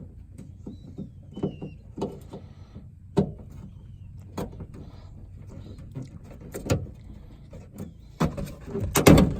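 Irregular plastic clicks and knocks from prying the interior door-latch cable's retaining clips inside a car door, with a louder cluster of knocks and rattles near the end.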